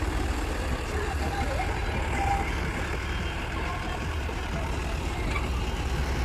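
Heavy diesel engine running steadily: a deep, unbroken low rumble with a mechanical noise on top.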